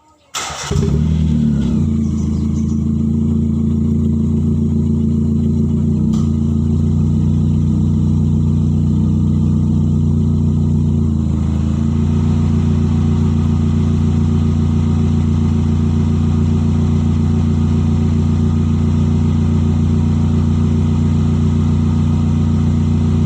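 A vehicle engine with a leaking exhaust starts about half a second in and then runs loud and steady at an unchanging speed. A short click is heard about six seconds in.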